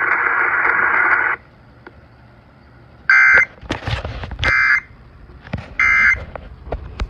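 Weather radio broadcast: a stretch of radio static hiss cuts off suddenly, then three short warbling data bursts about 1.3 s apart. These are the Emergency Alert System SAME end-of-message tones that close the severe thunderstorm warning. A few faint low clicks come between the bursts.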